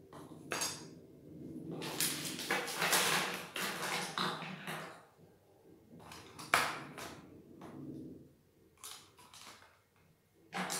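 Pens and pencils rattling and clicking against each other as they are put into a folded-paper box: a dense stretch of clatter about two seconds in, then separate sharp clicks, the loudest about six and a half seconds in.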